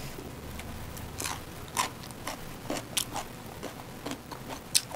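Close-miked eating sounds: irregular short clicks and crunches of chewing and mouth noises, about two a second.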